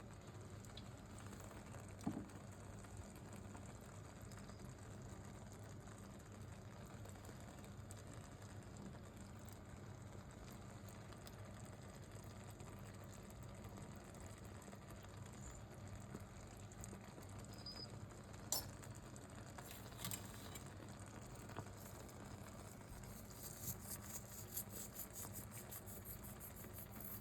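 Faint pan of baked beans and mushy peas simmering on the hob: a steady low hum with quiet crackling, plus a few soft clicks. The crackling comes thicker near the end.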